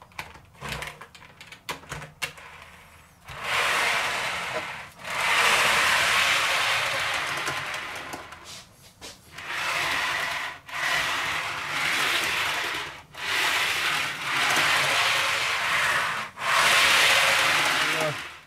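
OO gauge model railway wagons rolling along freshly glued model track, pushed back and forth by hand. A few light clicks come first, then about six long runs of rolling noise with short pauses between them.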